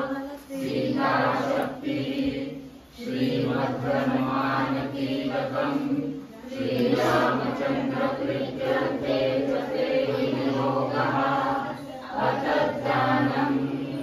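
A group of men and women chanting a prayer together in unison, on long held notes, in lines separated by short pauses for breath.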